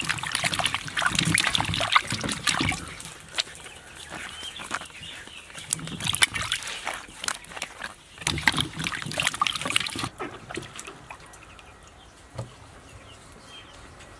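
Water trickling and splashing in uneven spells, with small clicks and knocks of handling; it grows quieter after about ten seconds.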